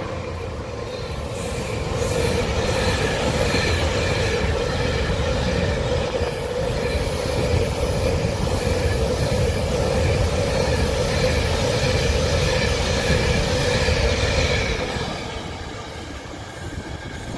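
Freight train's string of hopper wagons running past at speed, the wheels on the rails making a steady noise with a steady squealing tone above it. The noise fades about fifteen seconds in as the last wagon goes away down the line.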